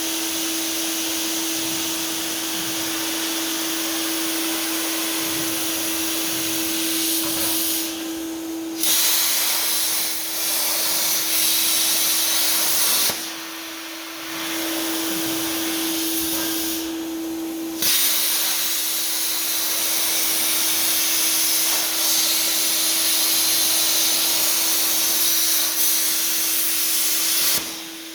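Lincoln Tomahawk 1000 plasma cutter on a CNC table, its arc and compressed air hissing steadily over a constant hum while it cuts a part. The hiss drops out briefly four times, as the torch stops between cuts.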